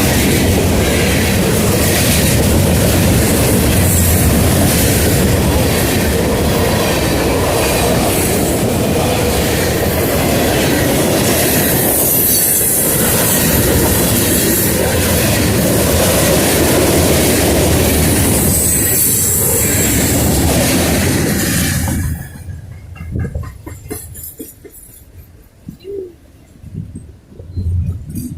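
Freight train cars rolling past close by, wheels clacking rapidly over the rail joints with a high wheel squeal at times. The noise cuts off abruptly about three-quarters of the way through, leaving only faint scattered sounds.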